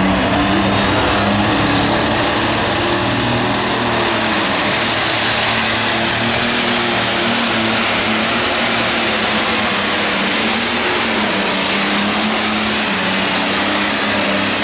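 Allis-Chalmers D-21 super stock pulling tractor's turbocharged diesel engine running at full throttle under load as it drags the weight sled. A high turbocharger whine rises over the first four seconds or so, then holds steady.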